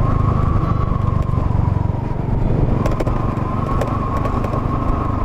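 Honda Monkey's small single-cylinder four-stroke engine running at a steady cruise on a gravel track, with a constant whine and a few light clicks over the rumble.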